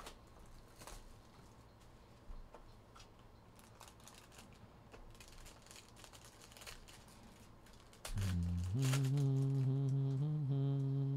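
Faint rustling and crinkling of a foil card wrapper and a trading-card box being handled. About eight seconds in, a man hums a steady low note for about three seconds, shifting pitch slightly once or twice.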